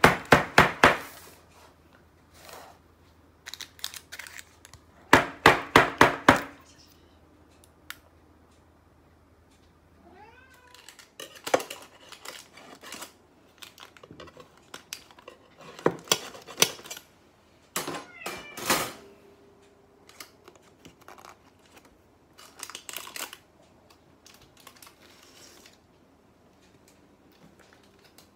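A metal bread tin holding a just-baked loaf banged on a kitchen counter in quick runs of sharp knocks, the shock that keeps the loaf from shrinking as it cools. Later come scattered scrapes and clicks of a knife run down inside the tin, and short squeaky glides.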